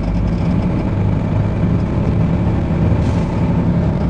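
Mercedes-Benz 4x4 expedition truck's diesel engine running steadily under way, heard from inside the cab as an even, low-pitched engine note.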